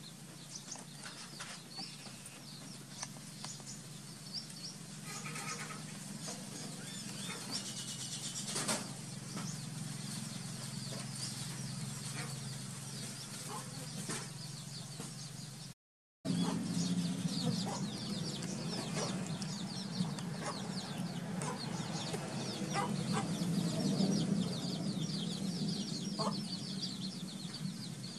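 Short animal calls over a steady low hum, with many brief high-pitched sounds scattered throughout; the hum gets louder after a cut about halfway through.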